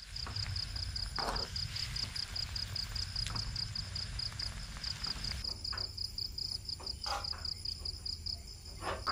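A cricket chirping steadily at night, about five high chirps a second, with a few faint clicks and scrapes now and then.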